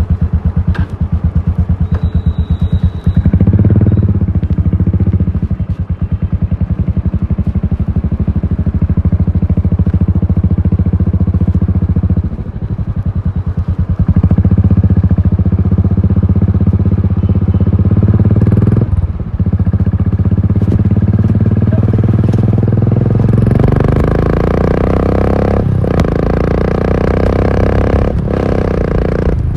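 Royal Enfield Continental GT 535's single-cylinder engine running through an aftermarket exhaust while riding, with a steady, rapid pulsing beat. The beat dips briefly a couple of times, and near the end the revs climb, broken twice by short gaps.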